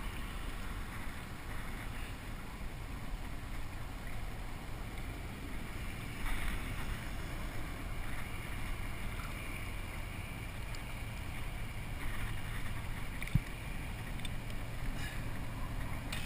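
Water swishing along a plastic kayak's hull as it moves, with wind on the microphone. A single sharp knock comes near the end.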